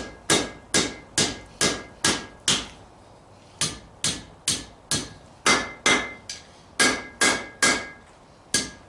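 Blacksmith's hand hammer striking hot steel on a London pattern anvil, bending the bar down over the anvil's edge: steady blows about two a second, each with a brief metallic ring. The blows stop for about a second a third of the way in, then resume.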